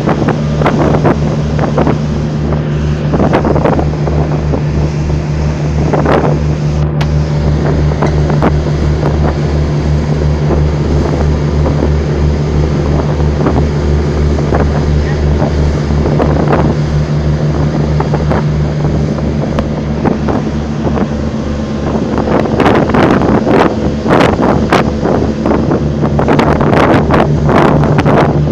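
An engine being test-run, holding a steady low note at a constant speed. Brief crackling noises come now and then, thicker near the end.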